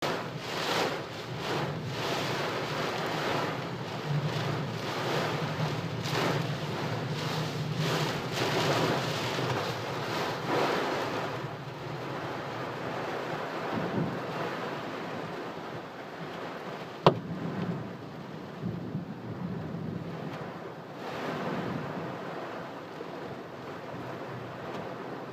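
Very heavy rain pounding on a moving car, heard from inside, coming in gusty surges and easing to a lighter, steadier patter about eleven seconds in. A single sharp click about seventeen seconds in.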